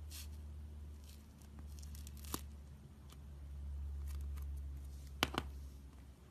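Iceberg slime's dried, crusty top layer crackling and tearing as it is handled, with a few sharp snaps. The loudest snaps come about two seconds in and again about five seconds in, over a steady low hum.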